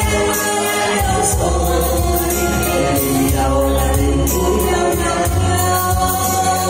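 A woman and a man singing a duet into microphones over amplified backing music with a steady bass line, heard through a PA system.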